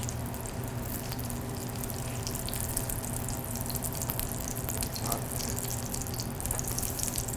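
Butter and canola oil sizzling in a heated frying pan, a steady crackle with a low steady hum underneath.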